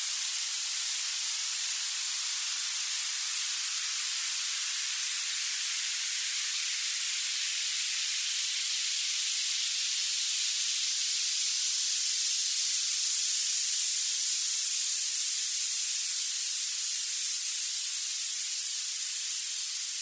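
Violet noise: a steady, very thin hiss with most of its strength in the highest pitches and no low end at all.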